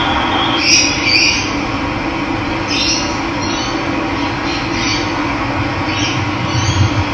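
Running water making a steady rush, with short bird calls over it, repeated about seven times.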